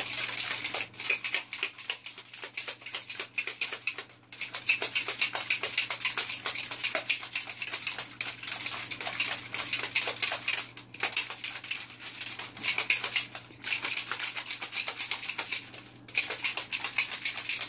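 Plastic shaker bottle of protein powder and water shaken hard, a fast continuous rattling and sloshing broken by a few short pauses.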